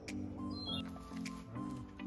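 Background music with a repeating low chord pulsing a few times a second.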